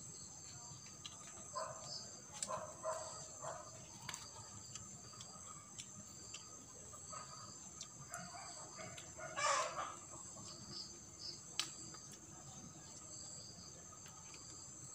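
Steady high insect chirring, with several short animal calls over it; the loudest call comes about two-thirds of the way through.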